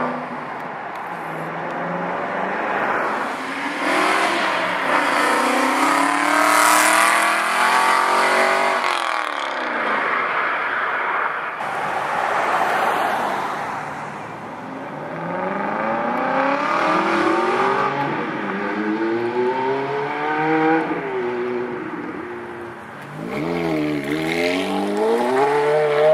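Performance car engines accelerating hard away from the meet, the pitch climbing through the gears with short breaks at each shift, several times over. A few quick throttle blips come near the end.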